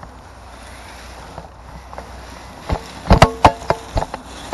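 Low wind rumble on the microphone; about three seconds in, a quick run of sharp clicks and knocks with a short motor whine: an RC crawler truck clambering over sticks and leaves.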